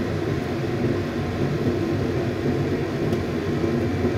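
Shrimp and spinach soup boiling hard in a frying pan: a steady low bubbling rumble, boiled through so the salted egg white cooks.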